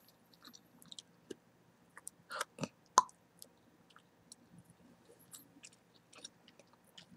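Close-miked gum chewing: scattered wet clicks and smacks of the mouth, with one sharper, louder click about three seconds in.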